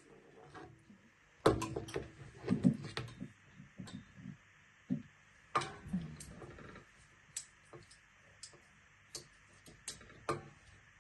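Hands handling parts of a salt lamp: irregular clicks, taps and knocks, with a busy cluster about a second and a half in and another around the middle, and scattered single ticks between.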